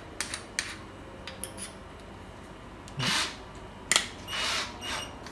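Clicks and short rubbing, grating sounds as a 10 mm drill bit is fitted into the keyless chuck of a Workzone cordless drill-driver and the chuck is turned by hand to grip it. A sharp click comes just before the last burst of rubbing.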